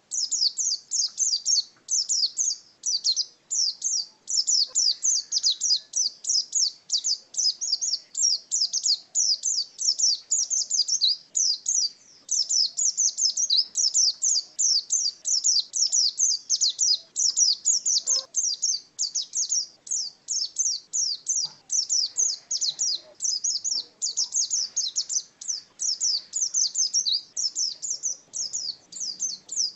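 A pleci dakun white-eye sings a long, nearly unbroken, rapid high twittering song of quick falling notes, with only brief pauses. This is the sustained 'ngalas' song that bird keepers prize.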